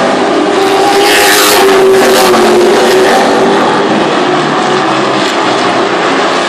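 Late model stock cars' V8 engines racing on a short oval track. The field is loudest as cars pass in the first couple of seconds, then settles to a slightly quieter, steady engine noise as they move away around the track.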